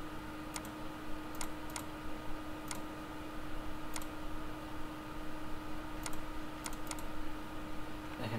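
Scattered single clicks of a computer mouse and keyboard, about eight in all, over a steady low hum.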